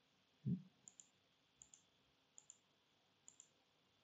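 Computer mouse clicking, a press-and-release pair about every three-quarters of a second, four times. About half a second in there is one brief, low vocal sound, louder than the clicks.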